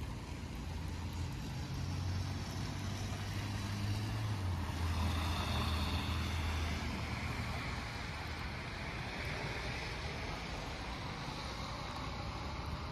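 A motor vehicle passing by: a low engine hum and tyre noise swell over several seconds, peak about five seconds in, then fade.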